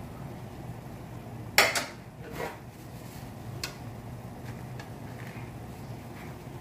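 Slotted metal spatula clinking and knocking against a metal roasting pan a handful of times, the loudest a quick double knock about a second and a half in, over a steady low hum.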